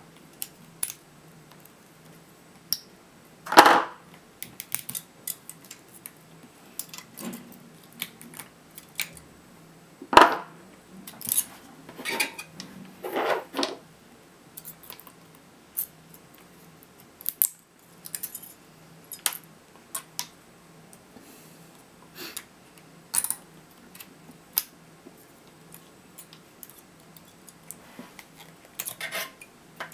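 Pliers gripping and tearing the spot-welded nickel tabs off LG 18650 lithium-ion cells: irregular metallic clicks, snaps and scrapes, with a few louder snaps among them.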